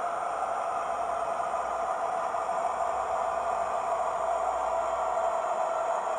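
Paxman Valenta engine sound of a Class 43 HST power car, played by a Hornby Twin Track Sound decoder through a small Zimo speaker in an OO gauge model as it runs slowly along the track. A steady engine drone with a constant mid-pitched tone, slowly growing louder.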